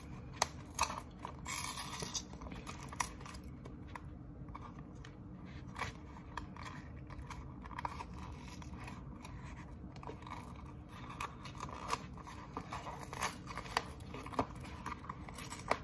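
Fingers picking and scraping at the top flap of a cardboard cornstarch box, an irregular run of short scratches and clicks as the box is worked open.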